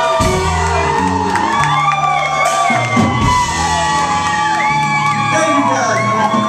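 Live rock band playing in a large room, with bass and drums under sung vocals, while the crowd whoops and sings along.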